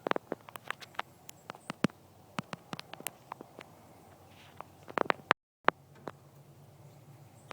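Scattered sharp little clicks and crackles at irregular intervals, several a second, over a quiet outdoor background, with a brief cut to dead silence about five seconds in.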